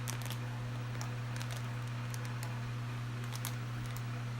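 Faint, scattered clicks and taps of a small plastic WWE Minis figure being handled as its arms and head are pushed on, over a steady low hum.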